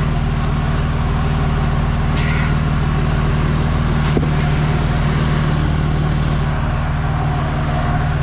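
Four-wheel-drive truck's engine running at steady revs, an even low drone that hardly changes in pitch.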